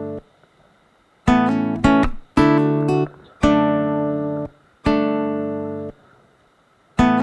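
Background music: an acoustic guitar plays a series of plucked chords, each let ring and then stopped, with short pauses between phrases.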